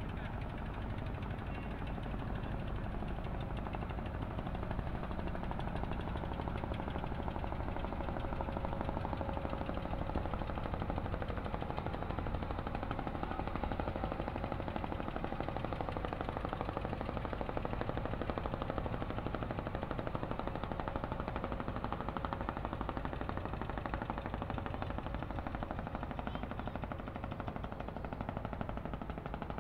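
A wooden passenger boat's inboard engine running steadily with a rapid, even chugging.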